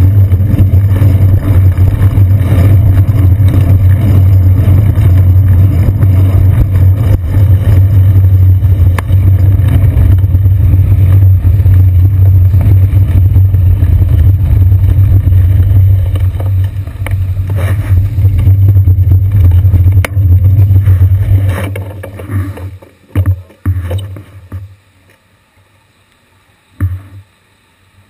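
Heavy, steady low rumble of a bicycle riding over wet city streets, picked up through the seat post by a GoPro in its housing. It dies away about three-quarters of the way through as the bike comes to a stop, leaving near quiet broken by a few short thumps.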